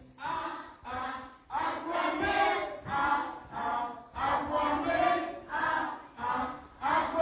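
A group of children singing a song together in unison, in short phrases about a second long.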